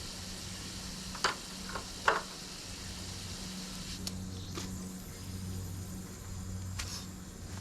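Pressure washer running: a steady hum with the hiss of its water spray, broken by a few sharp clicks or knocks, the two loudest about one and two seconds in.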